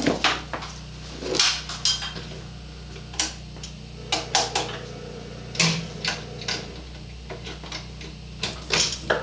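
Irregular sharp clicks and knocks over a steady low electrical hum as a 150-watt high-pressure sodium floodlight is switched on and strikes.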